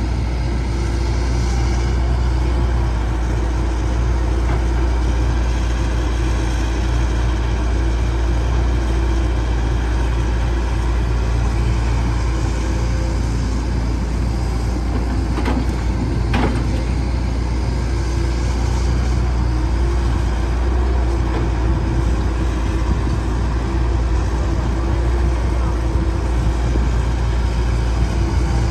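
Diesel engine of a Caterpillar 312C excavator running steadily, with two brief clicks about halfway through.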